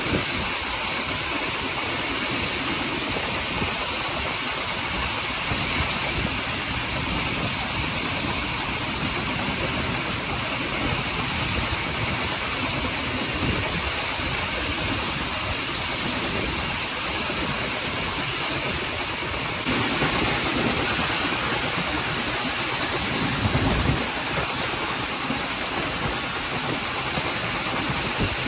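Hunslet Austerity 0-6-0 saddle-tank steam locomotive working a train, heard from an open carriage window close behind it: a steady rush of steam, wheels on rail and wind. It grows louder and hissier about twenty seconds in.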